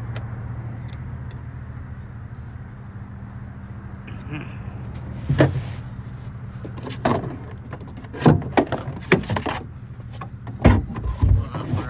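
A steady low hum, with irregular sharp knocks and clunks from about five seconds in, as of hard parts being handled and set down while batteries are fitted in a boat.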